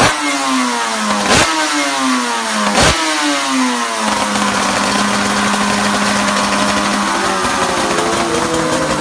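Suter MMX 500's V4 two-stroke racing engine running on the stand. For the first few seconds the revs rise and fall in quick repeated swoops, with two sharp cracks. It then settles into a steady note, and the revs slowly climb near the end.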